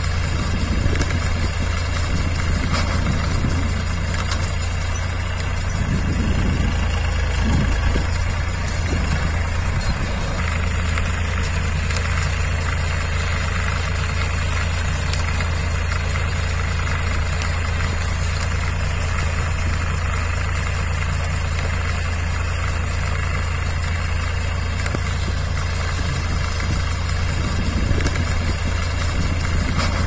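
Massey Ferguson 7250 DI tractor's three-cylinder diesel engine running steadily under load while it pulls a round straw baler, with a constant low drone.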